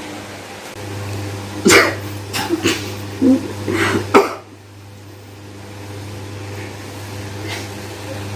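A person coughing hard several times in quick succession, over a steady low hum.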